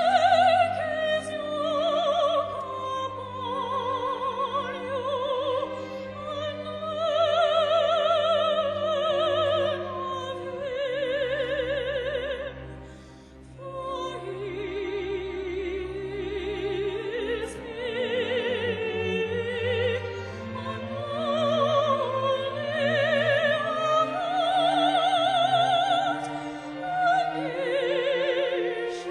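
A classical singer with a wide vibrato sings a slow melody over a string orchestra holding sustained low notes. The singing breaks off briefly about halfway through, then resumes.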